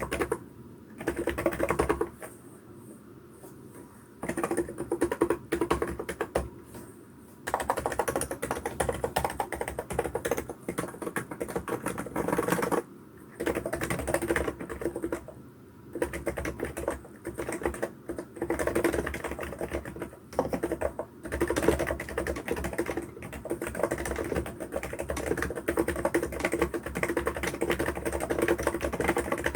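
Typing on a Hansung GK898B wireless electrostatic-capacitive (non-contact) keyboard: runs of quick keystrokes lasting a few seconds, broken by short pauses.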